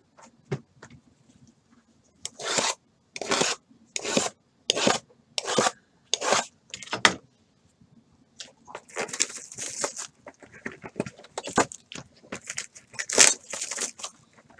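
Cardboard trading-card boxes being slid and set down on the table, about seven scraping knocks a little under a second apart, then crinkling and rustling as one shrink-wrapped box is unwrapped and opened.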